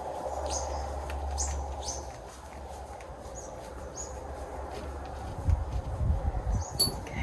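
Wild birds chirping in short high calls over a low rumble, with a few knocks and thuds of tool handling near the end.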